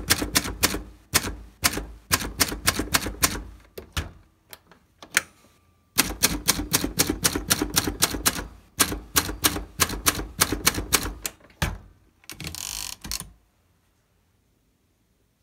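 Hermes 2000 manual portable typewriter being typed on: quick runs of sharp typebar strikes, broken by a short pause with a brief ringing tone about five seconds in. About twelve seconds in, a second-long rasping noise comes and the typing stops.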